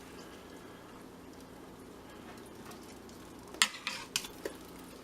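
Kitchen utensils clacking against metal cookware: a few sharp clicks and clinks about three and a half to four and a half seconds in, over a steady low hiss with a faint hum.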